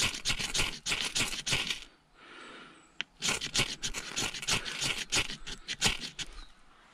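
A ferrocerium rod scraped hard and fast with a knife, over and over, throwing sparks onto tinder. There are two runs of quick scrapes, with a pause of about a second just after two seconds in.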